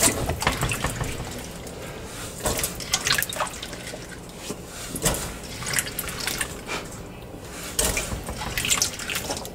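Handfuls of raw potato cubes dropped into a pot of watery bean broth, plopping and splashing in irregular bursts.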